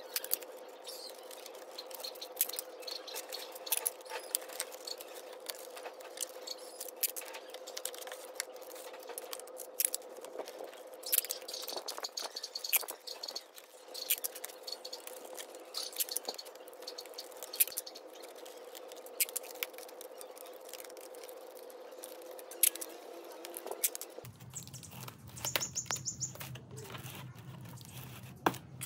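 Packing tape being pulled off a handheld tape dispenser and pressed onto cardboard, heard as scattered clicks, scrapes and short tearing sounds over a faint steady hum. A bird chirps briefly near the end.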